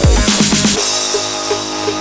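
Electronic music soundtrack. The heavy drums and bass drop out just under a second in, leaving held synth tones and a short repeating note.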